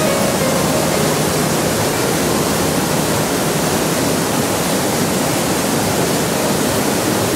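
Rhine Falls: the steady, loud rush of a large waterfall, its water crashing over and around rock outcrops.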